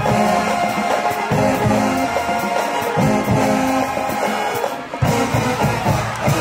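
Music led by brass horns over a steady beat, dipping briefly about five seconds in.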